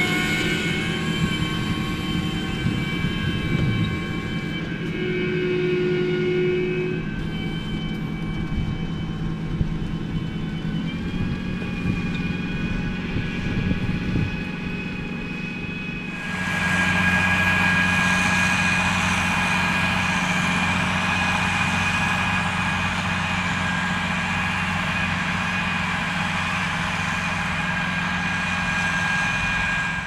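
John Deere 8320RT tracked tractor, with its 9-litre PowerTech six-cylinder diesel, running under load while pulling a semi-mounted plough. Steady high whining tones sit over the engine hum. The sound turns suddenly louder and fuller about halfway through.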